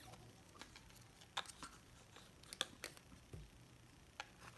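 A few faint, sharp clicks and taps of plastic Play-Doh tools and pots being handled while dough is taken out.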